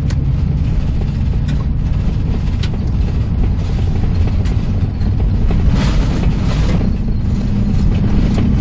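Winnebago motorhome driving on a washboard gravel road, heard from inside the cab: a loud, steady rumble from the corrugations shaking the rig, with scattered knocks and rattles.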